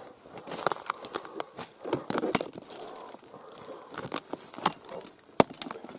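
Dry twigs and brittle dead wood crunching and snapping in a run of irregular sharp cracks, the loudest about five and a half seconds in.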